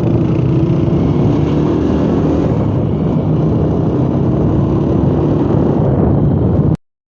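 Motorcycle engine running steadily while riding, with road noise. The sound cuts off abruptly near the end.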